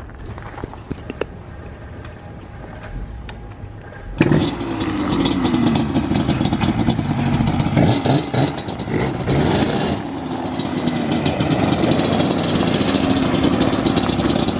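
A Yamaha Banshee ATV's two-stroke engine catches suddenly about four seconds in, after a few faint clicks, and keeps running loud with a fast popping beat. It is revved up and down a little in the middle.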